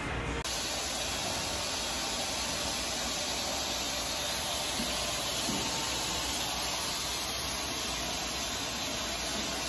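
A steady, even hiss that begins about half a second in and holds without a break.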